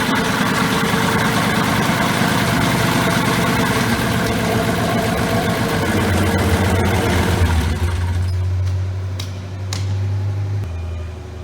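Rotec R2800 seven-cylinder radial engine running steadily. About eight seconds in its sound falls away, leaving a low hum and two sharp clicks.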